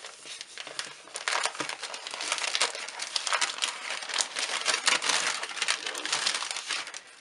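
Brown kraft wrapping paper crinkling and rustling as hands unfold it from around a parcel: a busy run of irregular crackles that builds up after the first second.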